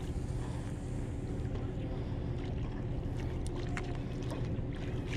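A steady low motor drone under an even hiss, with a few faint clicks.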